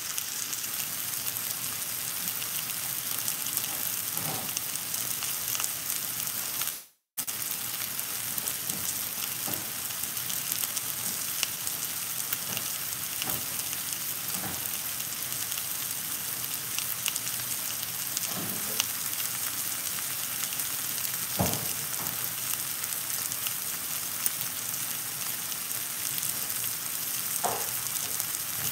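Lamb chops and chicken breasts searing in frying pans: a steady sizzle with fine crackling. The sound cuts out for a moment about seven seconds in, and there are a few light knocks in the second half.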